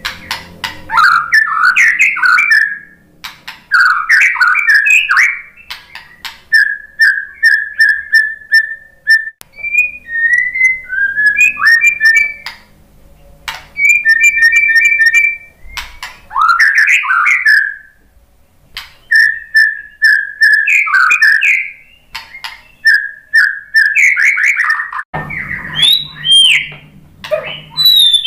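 White-rumped shama singing a long, varied song: phrases of a second or two made of whistled notes, fast trills and runs of rapid repeated notes, separated by short pauses.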